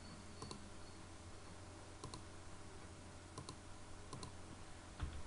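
Faint computer mouse clicks, several of them in quick pairs, over a low steady hum.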